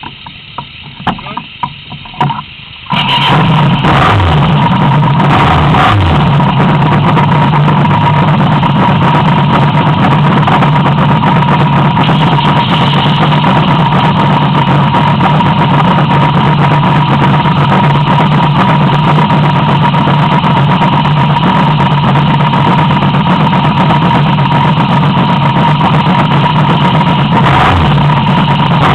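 A few knocks, then a motorcycle engine starts about three seconds in and idles steadily close by.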